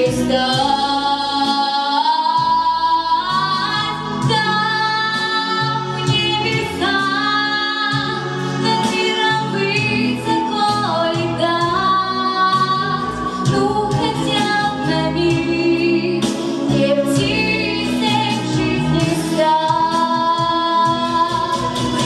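A young woman singing a solo song into a handheld microphone over instrumental accompaniment, with long held notes that glide between pitches.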